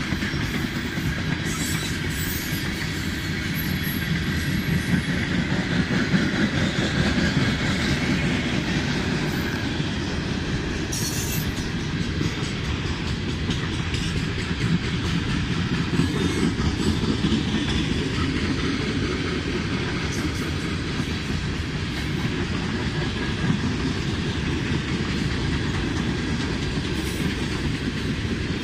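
A train rolling past on the rails: the steady, unbroken rumble of wheels on track as its cars go by.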